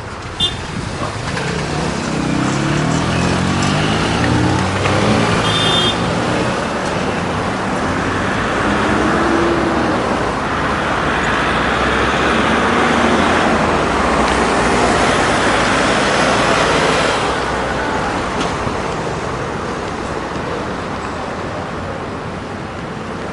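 City street traffic heard from a moving bicycle: a motor vehicle's engine rises in pitch in steps over the first few seconds as it accelerates. Traffic then passes louder through the middle and eases off toward the end.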